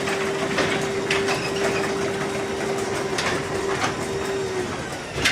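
Garage door openers running, with the doors rattling along their tracks over a steady motor hum. The hum stops about four and a half seconds in, and a sharp clunk follows near the end.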